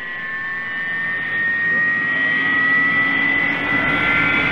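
Intro sound effect: a swelling rising whoosh with several high tones slowly gliding upward, growing louder throughout.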